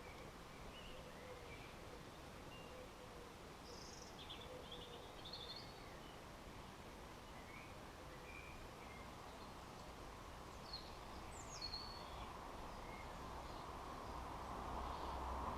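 Garden birds giving short, faint chirps and calls over a steady outdoor background hiss. A low rumble grows louder near the end.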